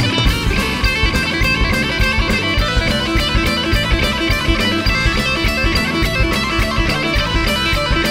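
Live rock band playing an instrumental passage: distorted electric guitar over bass and drums with a steady, driving beat.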